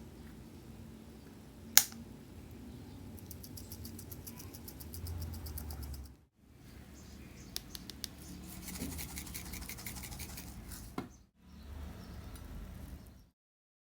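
Kitchen utensil scraping rhythmically against a pan or dish while the creamy pasta is stirred or served, in short clips that cut off abruptly. There is a sharp clack about two seconds in and a few lighter clicks later.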